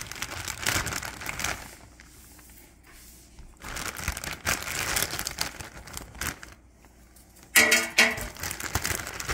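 Plastic bag of frozen waffle fries crinkling as it is torn open and handled, in bouts with quieter gaps. Near the end comes a short, louder clatter as fries are dropped into the air fryer basket.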